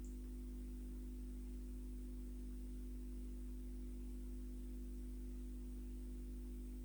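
A steady low electrical hum with faint hiss, unchanging throughout; no music or singing.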